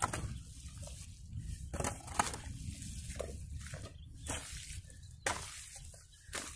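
Hoe blade working a heap of wet clay mud for red bricks: about half a dozen irregular squelches and scrapes as it cuts into and pushes the mud.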